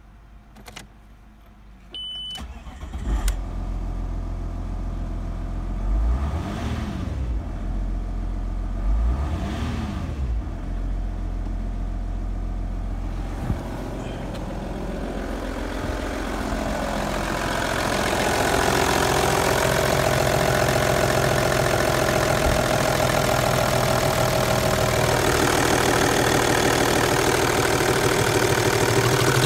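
Audi A4 B6's 2.5 TDI V6 diesel (engine code BFC) starting after a short beep, then idling with two brief blips of the throttle a few seconds apart. Later it idles steadily and sounds louder, heard close up under the open bonnet.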